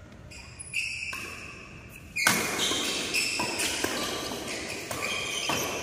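Doubles badminton rally in a large hall: sharp racket strikes on the shuttlecock and shoes squeaking on the court mat. The play starts loudly about two seconds in.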